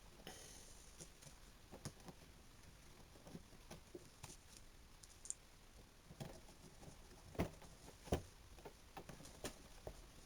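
Faint, scattered clicks and light knocks of electric drill parts being handled and fitted together during reassembly, with two louder knocks about seven and eight seconds in.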